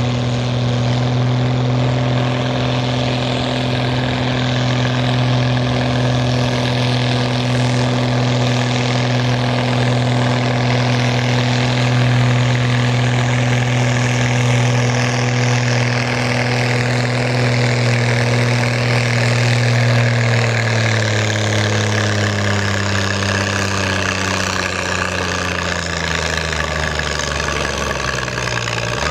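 A farm pulling tractor's engine runs loud and steady at high revs under load on the pulling sled for about twenty seconds. Then its pitch falls steadily over the last several seconds as the engine slows.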